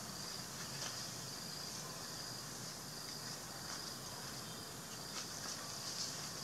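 Steady high-pitched chorus of insects, with faint scattered clicks over it.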